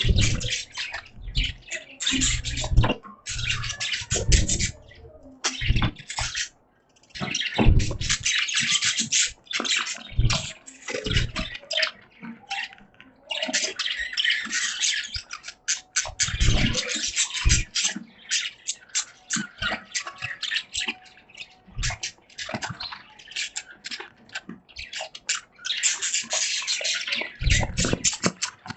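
Pet budgies chirping and chattering in a cage in bursts of busy, scratchy warbling, with occasional low thumps.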